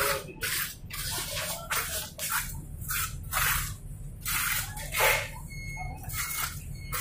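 Fresh wet concrete being spread and patted down by hand: a run of short, irregular wet slaps and scrapes, roughly two a second.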